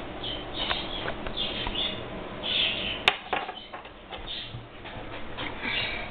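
Scattered rustling and small clicks, with one sharp click about three seconds in, over a low steady hum from the compact camera's microphone.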